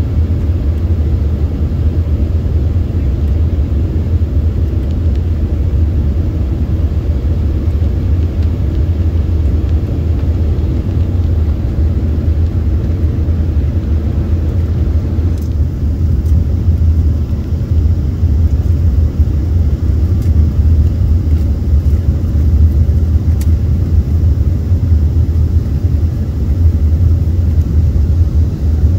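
Steady cabin noise inside an Embraer 145 regional jet descending on approach: a low rumble of airflow and its rear-mounted Rolls-Royce AE 3007 turbofans, a little louder from about halfway through.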